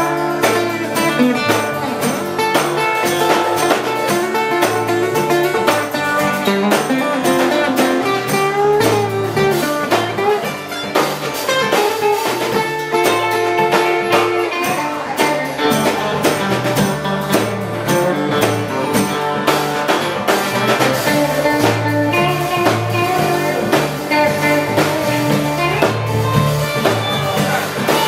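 Live honky-tonk country band playing an instrumental passage: electric guitars over acoustic guitar strumming and a steady drum-kit beat.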